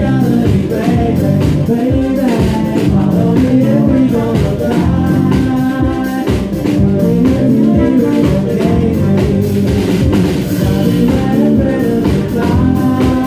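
A live band playing a song: a male lead vocal over acoustic guitar, electric bass and drum kit, with a trumpet joining partway through.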